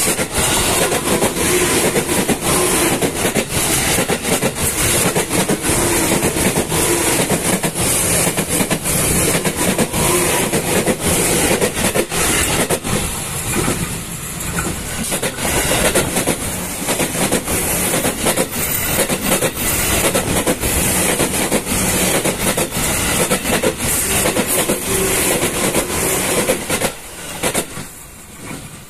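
Ex-JR East 205-series electric commuter trains passing at close range: a steady rumble with wheels clattering over the rail joints. The noise dips briefly about halfway through and falls away near the end.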